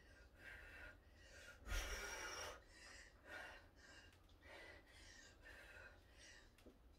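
Faint, hard breathing of a person mid-workout, about one breath a second, with one louder exhale about two seconds in.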